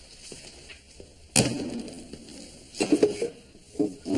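A single sharp wooden thump about a third of the way in, a school desk-chair knocked as a boy drops into his seat. Near the end come a few short, low mumbled vocal sounds.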